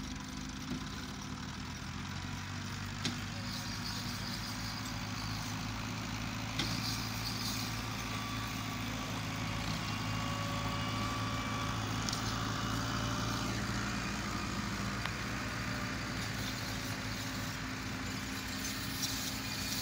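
Farm tractor's diesel engine running steadily under load as it drags a rear leveling blade through loose soil, with a few sharp knocks from the machinery.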